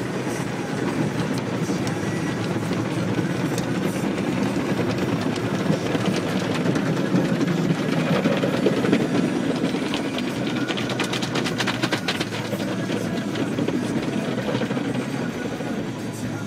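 Automatic car wash heard from inside the car: water spray and wash brushes working over the windshield and body, a steady rushing noise that swells to its loudest about eight to nine seconds in. A run of rapid crackling ticks follows around ten to twelve seconds in.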